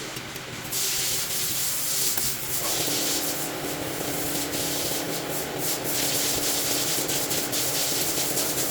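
A steady hissing, scrubbing noise starts suddenly about a second in, and a steady low hum joins it a little past halfway.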